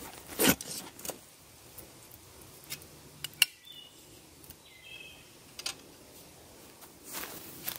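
Handling a Silky BigBoy folding saw and its strapping: a few sharp clicks and knocks, the loudest about three and a half seconds in, with a rustle near the end. Short bird chirps in the background.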